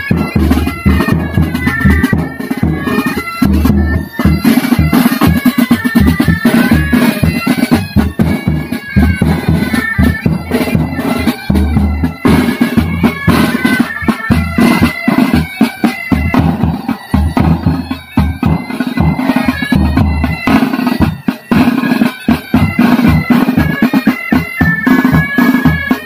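Military pipe band playing: bagpipes carry a continuous melody over their steady drones, with side drums and a bass drum beating time throughout.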